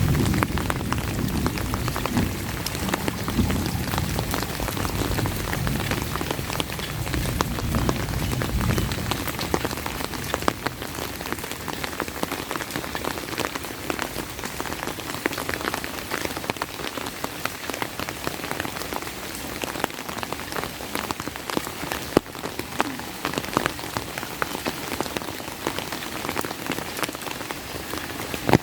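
Steady heavy rain, with many sharp individual drop impacts ticking through the hiss. A low rumble underneath dies away about nine seconds in.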